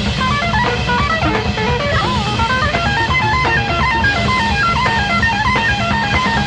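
Live jazz-rock fusion band playing, led by electric guitar in fast runs of rapid single notes with a few bent, wavering notes, over bass and drums.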